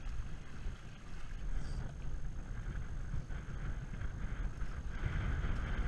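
Wind buffeting the camera microphone over the rush of water along the hulls of a Hobie Cat catamaran under sail, the water hiss growing louder near the end.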